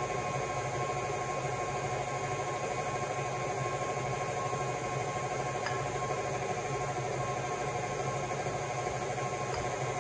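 Electric stand mixer running steadily with an even motor hum, its beater creaming butter in a steel bowl.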